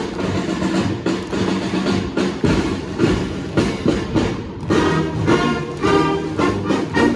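Marching brass band playing a march, drums beating about twice a second, with the brass melody coming through more strongly from about five seconds in.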